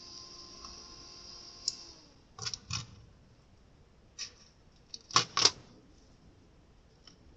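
Small computer cooling fan running with a steady whine and a hiss of air, winding down and stopping about two seconds in. Several sharp clicks and knocks follow as the fan and its parts are handled.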